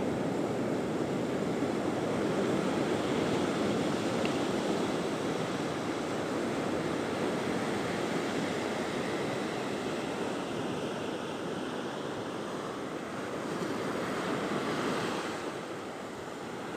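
Sea surf breaking steadily on a beach, a continuous rushing wash that swells a little now and then, with some wind on the microphone.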